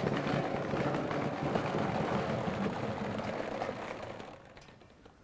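Plastic ball-pit balls pouring from a mesh bag into a metal oil drum, a dense clatter of many small knocks against the drum. It starts suddenly and fades out about four and a half seconds in.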